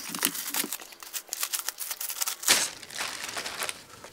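Clear plastic sleeve crinkling and rustling as it is peeled off a framed plaque, with one louder crinkle about two and a half seconds in, dying away near the end.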